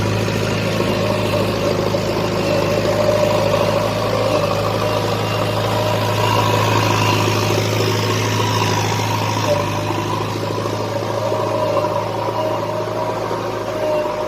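JCB 3DX Expert backhoe loader's 49 hp diesel engine running steadily, its note stepping slightly about four and nine and a half seconds in.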